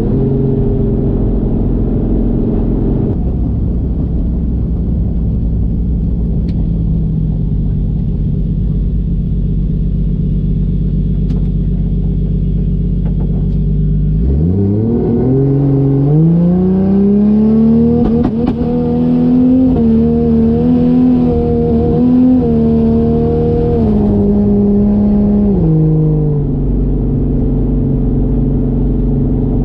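Toyota 1JZ inline-six engine in a Fox-body Mustang running steadily at low revs while cruising. About halfway through it revs up in a rising pull, holds higher revs for about ten seconds, then drops back a few seconds before the end.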